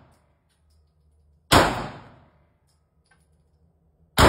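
Semi-automatic pistol fired twice, about two and a half seconds apart, each shot echoing briefly off the walls of an indoor range. The tail of the shot fired just before fades at the start.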